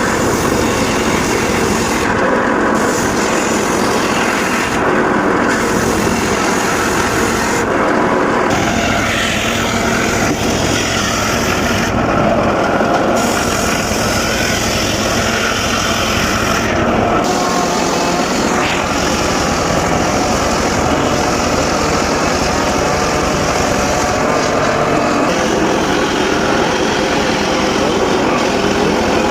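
Circular saw cutting mahogany wood, running loud and steady. Its high-pitched part drops away briefly several times.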